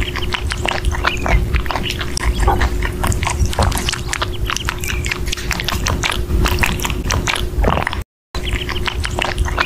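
Rabbit chewing and biting into a ripe strawberry: rapid, wet, crunchy nibbling clicks, close up. The sound cuts out briefly about eight seconds in.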